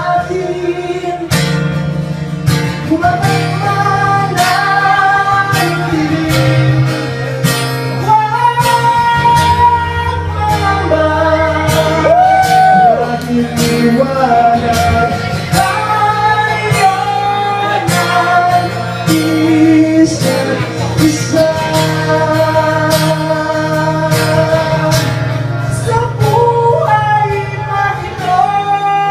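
A male singer sings into a microphone while strumming a steel-string acoustic guitar, in a live solo acoustic performance.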